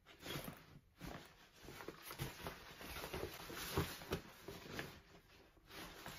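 Rummaging through a black fabric backpack: nylon rustling with soft knocks of things shifting inside, loudest a little under four seconds in.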